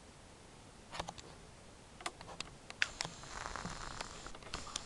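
Faint scattered clicks and taps over a low hiss, with a soft rustle about three seconds in.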